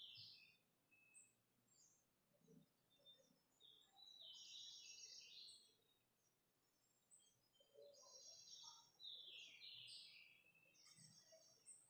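Near silence with faint bird chirping: a few spells of rapid, high chirps, longest around the middle and again near the end.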